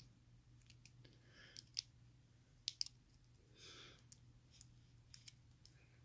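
Faint, scattered light clicks of small metal padlock parts, such as pins and shims, being handled by hand, with a brief soft rustle about three and a half seconds in.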